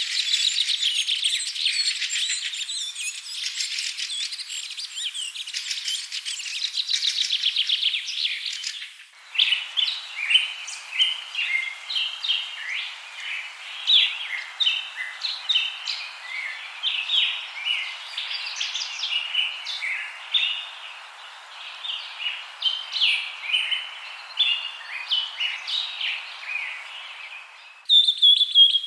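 Wild birds chirping and calling in quick, high-pitched notes. The character changes abruptly about nine seconds in and again near the end, as if separate recordings were cut together. The first stretch is a denser, buzzier chorus.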